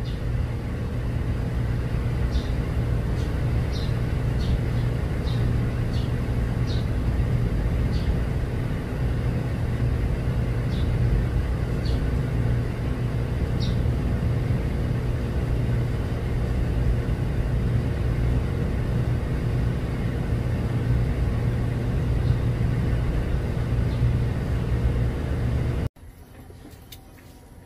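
A steady, loud low mechanical rumble with a hum, of the kind an idling engine or machinery makes, with faint high chirps scattered through the first half. It cuts off suddenly near the end.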